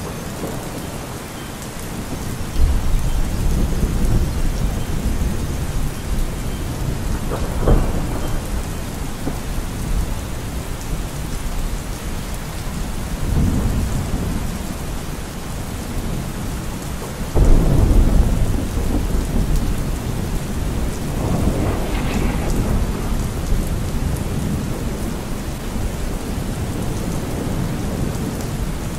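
Steady rain with repeated rolls of thunder, as in a thunderstorm recording. The loudest roll comes a little past halfway, and a sharper crack comes about eight seconds in.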